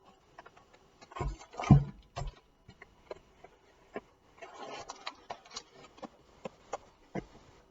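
Packaging being handled: a few knocks and thumps, the loudest about two seconds in, then a stretch of rubbing and rustling with scattered clicks.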